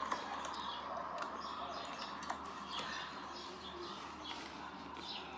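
Small screws being driven into a plastic toy train tender with a screwdriver: faint high squeaks every second or so, with a few light clicks.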